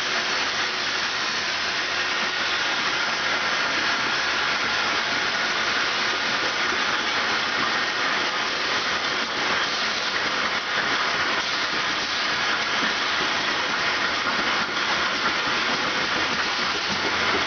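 Aerosol can production line machinery running, a steady, dense hiss-like din with a few faint steady tones in it.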